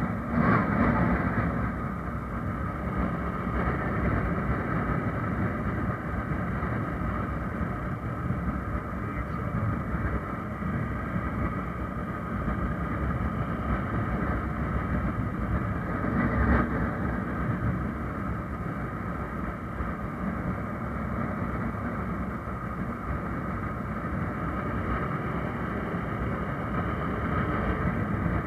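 Wind rushing over the microphone of a motorcycle riding at steady speed, with engine and road noise beneath. It swells briefly about a second in and again around the middle.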